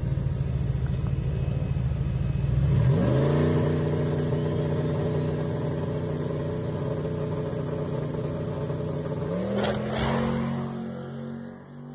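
Turbocharged Ford-powered SN95 Mustang GT drag car at the starting line: the engine runs rough and low, rises about three seconds in to a steady held rev, then launches near the end with a sharp rise in pitch and fades as the car pulls away down the strip.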